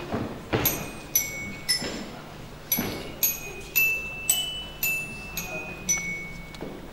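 Struck metal percussion playing about ten bright, ringing notes at roughly two a second, the pitch stepping up and down from note to note like a slow bell or chime melody.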